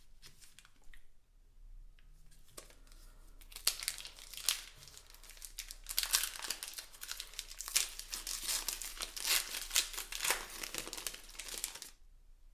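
Pokémon card packaging being crinkled and torn open: a few light rustles, then dense crinkling and tearing from about a third of the way in, stopping suddenly near the end.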